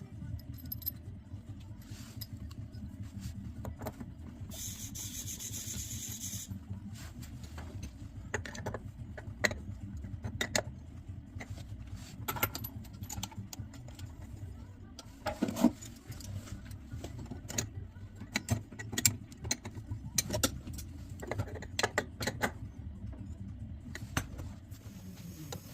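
Metal tools and plumbing fittings clinking and knocking in irregular clicks during work on the water connection under a sink, over a low steady hum. A brief hiss sounds about five seconds in.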